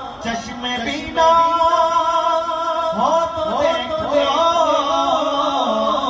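Men singing a naat (Urdu devotional poem in praise of the Prophet) into microphones, with long held notes that slide in pitch and no percussion. The singing grows louder about a second in.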